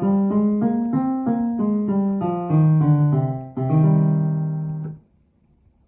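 Piano playing a minor scale stepwise with both hands together, going up and back down, then ending on a held note that dies away about a second before the end.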